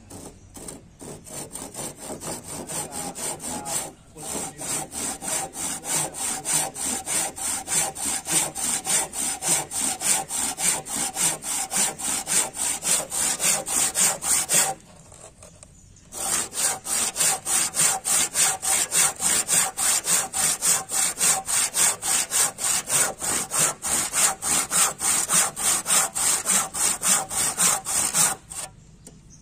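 Handsaw cutting across a wooden beam by hand: steady, rhythmic back-and-forth strokes. They falter briefly about four seconds in, break off for a second or so halfway through, then stop near the end. The cut is one of the saw kerfs for a wood joint.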